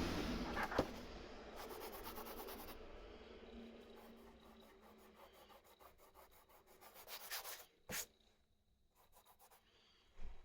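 Quick, repeated hand strokes rubbing across a bodywork surface, fading as they go on, with a sharp click about eight seconds in and another near the end.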